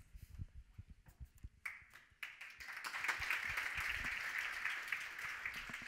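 Audience applauding: a few scattered claps at first, then swelling into steady applause about two seconds in.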